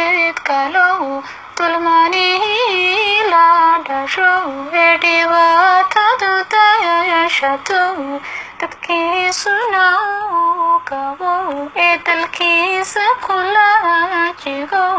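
A high female voice singing a Somali song (hees), with bending, ornamented melodic lines broken into short phrases.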